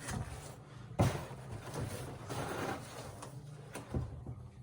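Packaging being handled during unboxing: a sharp knock about a second in and another near the end, with rustling in between.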